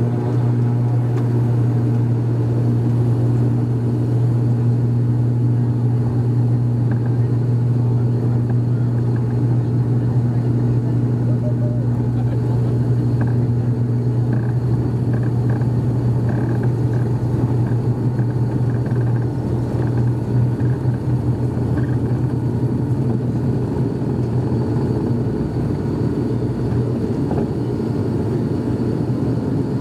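ATR 72-600's Pratt & Whitney PW127M turboprop at takeoff power during the takeoff roll, heard from a cabin seat beside the propeller: a loud, steady low propeller drone over runway rumble. A second, higher tone in the drone fades about halfway through.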